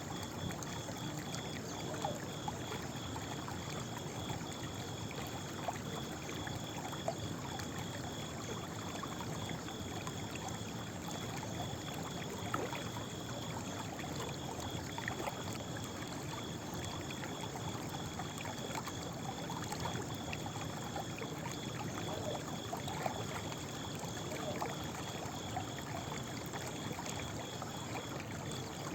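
Running water trickling steadily with small splashes, under a steady, high-pitched pulsing trill.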